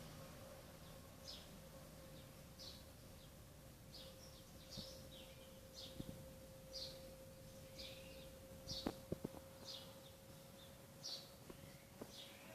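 A bird chirping: short, high, faint chirps repeated about once a second, over a steady faint hum, with a few soft clicks about nine seconds in.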